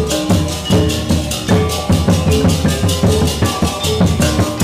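Balinese gong kebyar gamelan playing a tabuh petegak instrumental piece at full ensemble. Fast, even, interlocking strokes on bronze metallophones and kettle gongs run over kendang drums.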